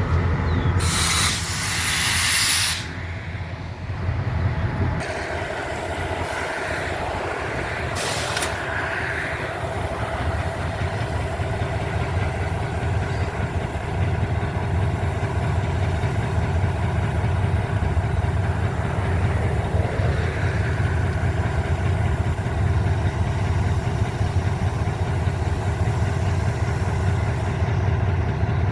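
Diesel freight locomotive running with a steady low hum, with two loud hisses of released brake air: one about a second in lasting under two seconds, and a shorter one around eight seconds in.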